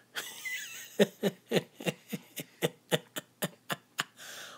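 Baby sucking from a bottle while feeding: a regular run of short smacking clicks, about four a second, starting about a second in.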